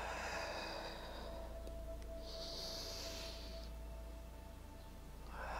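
A person breathing slowly and audibly through the nose, three long breaths in and out, paced to a yoga cat-cow flow of arching and rounding the spine. Soft background music with steady held tones runs underneath.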